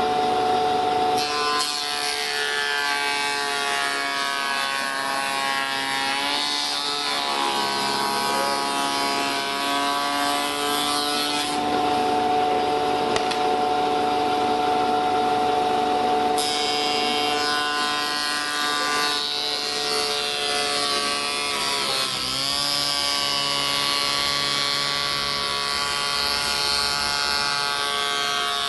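Spindle moulder (wood shaper) running, its cutter head shaping the edge profile of a solid-wood door panel. A steady machine whine over the hiss of cutting wood, the whine dipping in pitch twice and recovering.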